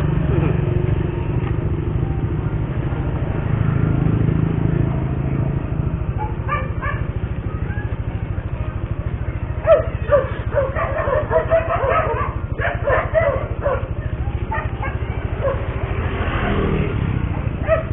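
Motorcycle engine idling with a steady low rumble, while a dog barks nearby: a couple of barks about six seconds in, then a run of barks from about ten to thirteen seconds in.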